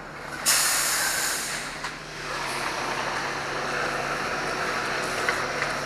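A heavy truck: a sudden hiss of air about half a second in, lasting about a second, like an air brake releasing, then its engine running steadily.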